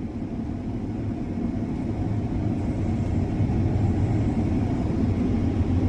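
Combine harvester running steadily while cutting wheat, a low engine drone that grows gradually louder.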